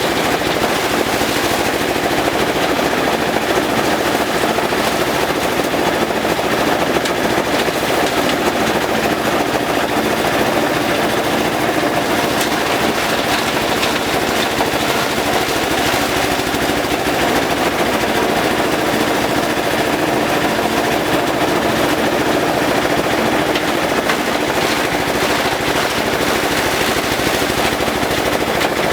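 Engine-driven compost shredder running steadily at full speed, its blades chopping elephant grass with a dense, rapid rattle over the machine's drone.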